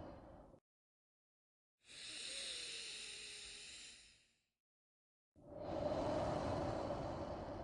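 Slow, deep human breathing for a paced breathing exercise. An out-breath trails off just after the start, then after a pause of about a second comes an airy, hissing in-breath lasting about two and a half seconds. After another pause, a fuller out-breath starts about five and a half seconds in.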